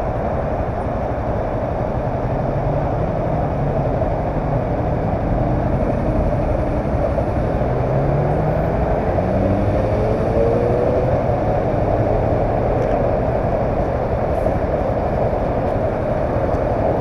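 Honda CBR300R's single-cylinder engine running at low speed as the bike creeps forward, with a couple of short rising revs around the middle.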